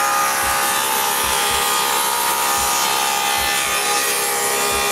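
Power tool cutting a rabbet along a mahogany strip: a steady, loud motor whine over the hiss of wood being cut, held without a break.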